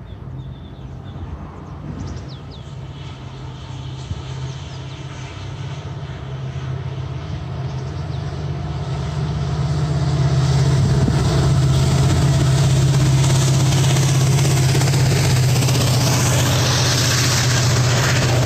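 EMD WDP-4D diesel locomotive hauling an express, its engine drone growing louder over about the first ten seconds as it approaches, then staying loud and steady as the train passes close. Wheel and rail noise rises along with it.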